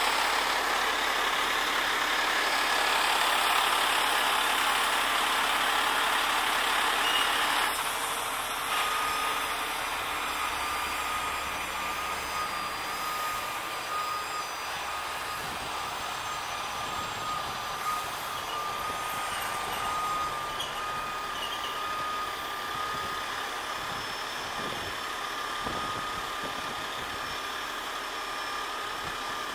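50-ton rotator tow truck's engine and boom hydraulics working under load as it lifts and swings a suspended forklift. A loud rushing noise for about the first eight seconds drops to a quieter steady running, with a thin steady high whine running on from there.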